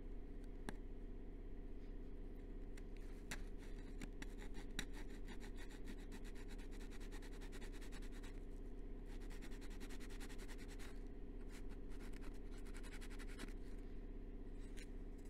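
Sanding sponge rubbed by hand along the fabric-covered edge of a model aircraft wing: runs of quick, scratchy strokes through most of the middle, stopping near the end, over a steady low hum.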